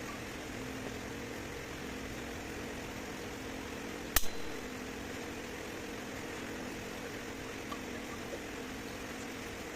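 A steady mechanical hum, like a fan or motor, with a single sharp double knock about four seconds in that rings briefly.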